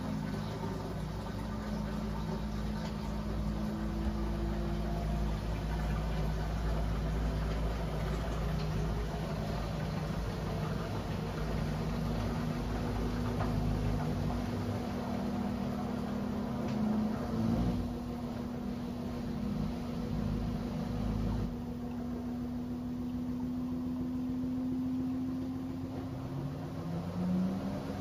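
Front-loading washing machine spinning its drum early in the spin cycle: a steady motor hum and whine over a low rumble. The rumble falls away about three-quarters of the way through, and a rising whine near the end marks the drum speeding up.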